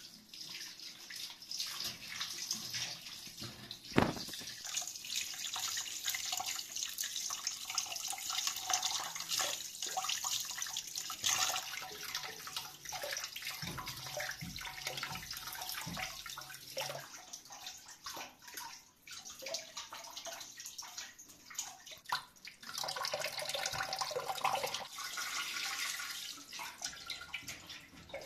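Kitchen tap running and splashing into a stainless-steel sink while raw chicken hearts are rinsed by hand. There is a sharp knock about four seconds in and a few dull thumps about halfway through.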